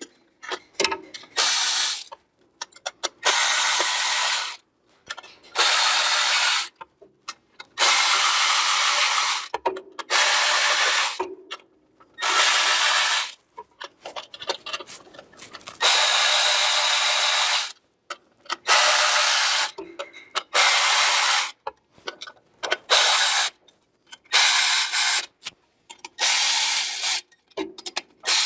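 Cordless electric ratchet spinning the primary clutch cover bolts on a Polaris RZR 1000, in a dozen or so short runs of one to two seconds each with brief pauses between.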